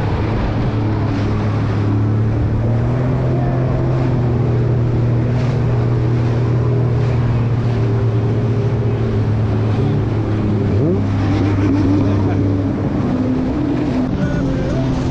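Jet ski engine running at a steady speed, its note holding constant, with wind on the microphone. A second engine climbs quickly in pitch about eleven seconds in, and the steady note drops away near the end.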